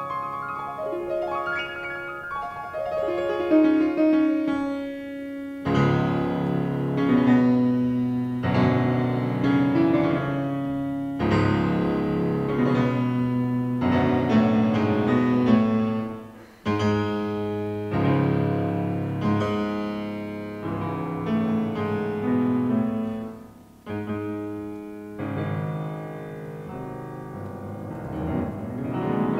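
Concert grand piano played solo: a falling run, then full chords over sustained bass notes in phrases broken by short pauses, and a fast rising run near the end.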